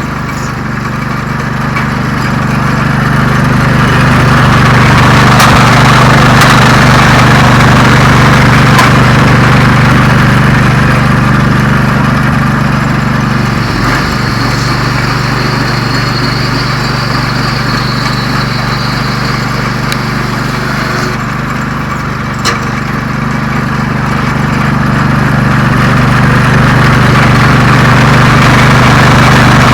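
Lucas sawmill's engine running steadily under load while its slab-flattening disc cuts across a red oak slab, taking a shallow pass of a few millimetres. A cutting hiss builds over the first few seconds and eases off after about twenty seconds.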